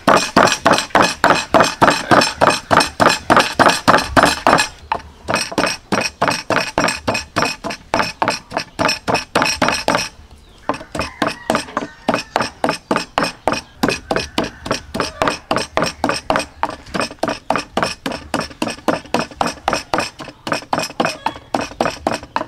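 Wooden pestle pounding in a wooden mortar, a steady run of knocks about three a second with two short breaks, grinding chili and salt into a dip.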